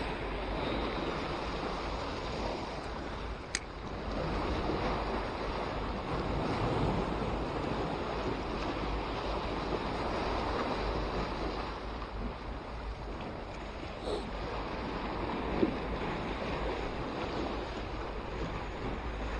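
Sea waves surging and washing over the concrete blocks of a breakwater, with wind on the microphone. A single sharp click about three and a half seconds in.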